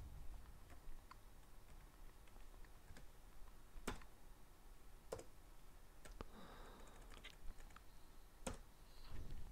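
Faint, isolated clicks from a computer keyboard and mouse: single sharp taps a second or more apart, with no steady typing run.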